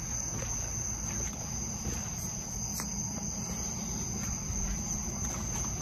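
Crickets trilling: one steady, high, unbroken tone over a low background rumble.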